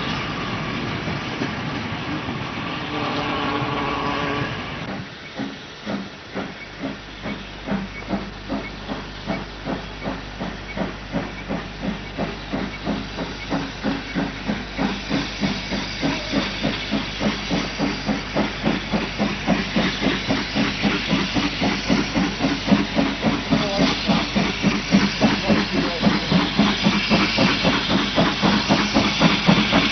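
Steam tank locomotive working: a steady run of exhaust chuffs, about two a second, with a hiss of steam, getting steadily louder as the engine comes closer.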